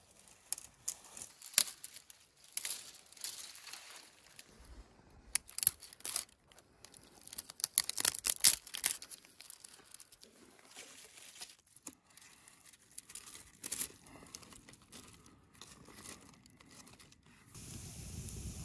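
Thin dry twigs being snapped off a branch by hand, an irregular run of sharp cracks and rustles that come in clusters. Near the end it changes suddenly to a wood fire burning with a steady hiss and crackle.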